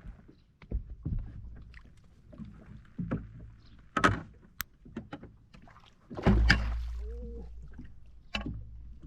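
Knocks and thumps on a small fishing boat while a hooked fish is played. The loudest is a heavy thump with a low rumble about six seconds in, which dies away slowly.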